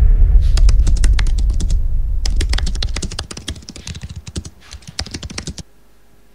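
Rapid computer-keyboard typing, a fast patter of key clicks in three runs that stops abruptly near the end. Under the first half runs the fading low rumble of a deep boom.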